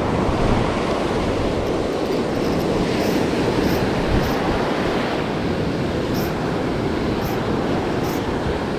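Ocean surf washing up the beach, with wind rumbling on the microphone, and a few short high ticks.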